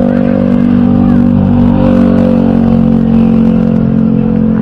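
Motor vehicle engine running close by on the road, a steady drone whose pitch dips slightly about one and a half seconds in.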